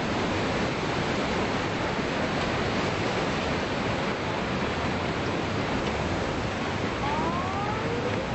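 Tsunami floodwater rushing and churning through a street with debris, a steady, even water noise. About seven seconds in, a faint rising wail joins it.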